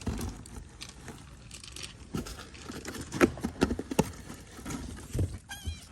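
Irregular rustling, scuffing and tapping from close handling, with a short, high kitten mew near the end.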